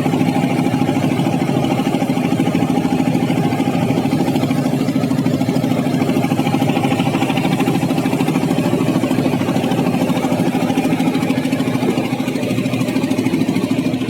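Boat engine running steadily with an even, unchanging drone, carrying the boat out to the fishing grounds.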